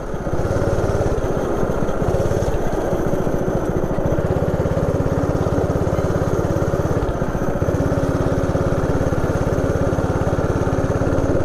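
Small 160 cc single-cylinder go-kart engine running steadily under throttle as the kart laps the track, its note easing briefly about four seconds in and again about seven seconds in.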